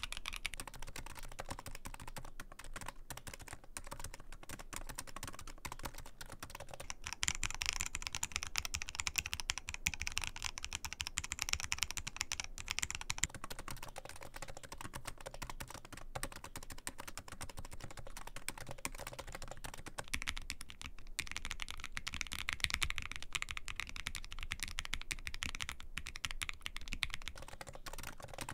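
Steady typing on two keyboards in turn: a Keychron Q8 mechanical keyboard with EPOMAKER Flamingo switches at first, then a REALFORCE GX1 with silent electrostatic capacitive (Topre-type) switches. The silent switches soften the higher-pitched sound of the keys springing back.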